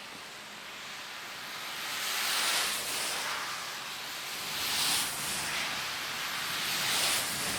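Cars passing one after another on a wet highway: tyres hissing through water on the road, three passes swelling and fading, about two and a half seconds apart.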